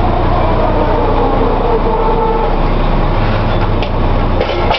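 Steady drilling-rig floor machinery running loudly, a low continuous engine hum under a noisy mechanical din, with a sharp knock at the very end.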